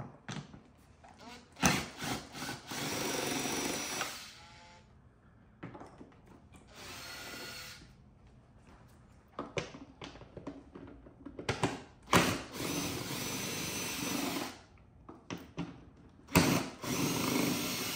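Cordless drill-driver spinning out 10 mm screws from a car bumper cover, run in four short bursts of a few seconds each, the second one quieter. Small clicks and knocks of handling fall between the bursts.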